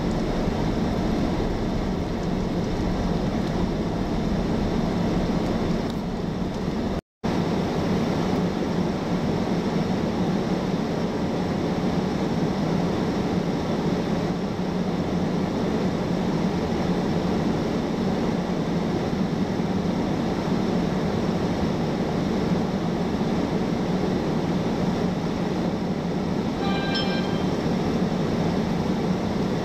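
Steady low rumbling noise that cuts out completely for a moment about seven seconds in, with a brief high chirping near the end.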